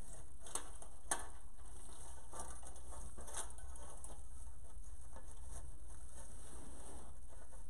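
Burlap deco mesh rustling and crinkling as it is pressed and fluffed by hand, with scattered crackles and clicks, over a steady low hum.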